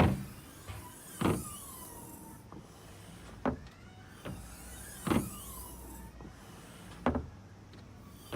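Toyota C-HR rear hatch being worked open and shut, with a sharp clunk about every one and a half to two seconds and a falling squeak after some of them. This is the abnormal noise the hatch has suddenly started making when opened and closed; a dealer inspection apparently found no cause.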